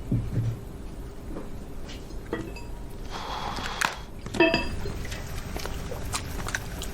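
Scattered light clinks and knocks of dishes and cutlery, with a short rush of noise about three seconds in.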